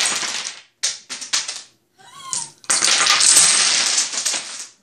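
A tall stacked tower of dominoes collapses onto a wooden table: a long, dense clatter of tiles tumbling, striking and sliding lasts about two seconds, ending just before the close. Shorter bursts of clacking tiles come in the first second and a half.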